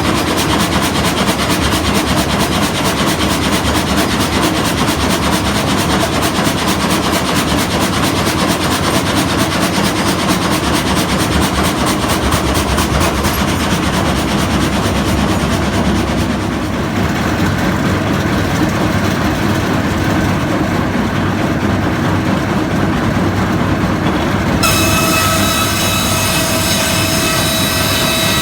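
Old Bolinder sawmill running loudly with a dense, fast, regular mechanical clatter. About 25 seconds in, a ringing whine made of several steady high tones joins it.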